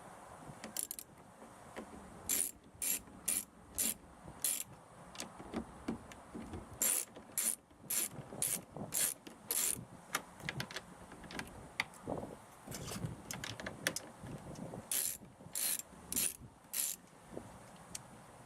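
Socket ratchet with a 10 mm socket on an extension clicking in several short runs of quick strokes while backing out small bolts, with quieter handling and rubbing noise between the runs.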